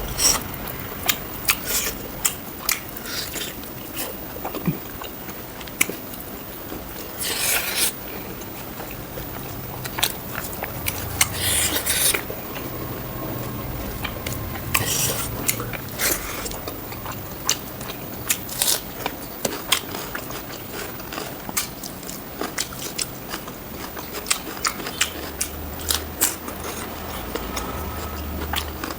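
Close-miked chewing and biting of spicy pork curry with rice, made up of frequent sharp wet mouth clicks and smacks with a few longer crunchy bursts.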